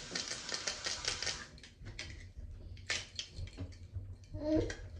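Trigger spray bottle pumped in a rapid run of short hissing spritzes onto a wig's hair, with trigger clicks. It is densest in the first second and a half, with a few more spritzes about three seconds in.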